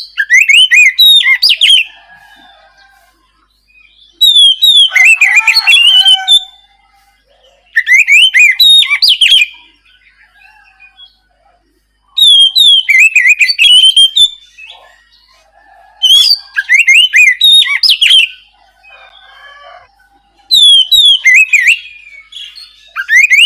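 Oriental magpie-robin (kacer) singing in the loud, open 'ngeplong' style: bouts of rapid whistled, sliding phrases about two seconds long, repeating about every four seconds with short pauses between.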